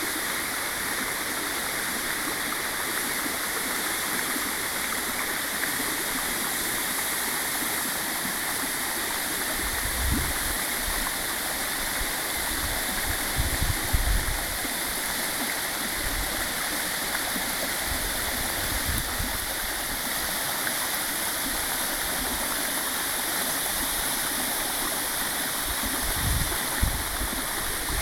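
Waterfall pouring into its plunge pool: a steady, even rush of water. A few brief low rumbles rise over it, about ten seconds in, around fourteen seconds, and again near the end.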